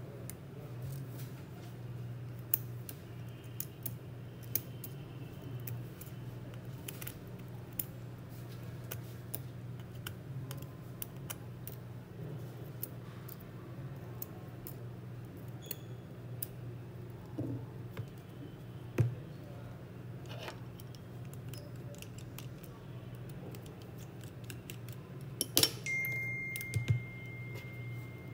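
Scattered small clicks and taps of hand tools and parts being handled on a phone-repair bench, over a steady low hum. Near the end a thin, steady high tone comes in and keeps going.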